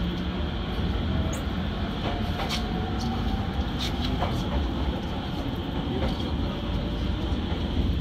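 JR Sobu Line commuter train heard from inside the car as it pulls out of a station: a steady rumble of the wheels on the rails, with several sharp clicks a couple of seconds in and a faint whine alongside them.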